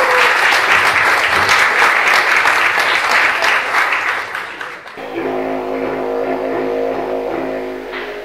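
An audience applauding for about five seconds, then it breaks off suddenly and a didgeridoo starts a steady, unbroken drone.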